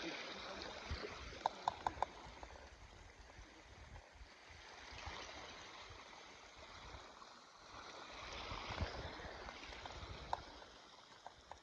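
Small trout river running, a faint steady rush of flowing water. A quick run of four light clicks comes about one and a half seconds in, with a few more near the end.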